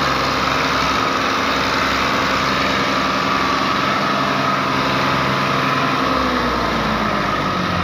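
Fiat 480 tractor's diesel engine running steadily under heavy load while pulling a fully loaded sugarcane trolley. The engine note drops a little near the end.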